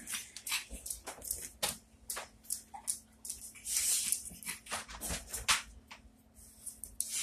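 Dogs' claws clicking and tapping irregularly on a hardwood floor, with a short breathy sniffing rush about four seconds in as the dog noses at the cat.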